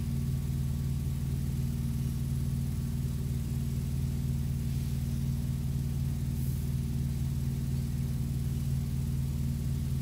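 Steady low droning hum with several even tones, unchanging throughout; the hand adjustments on the rack make no distinct sound above it.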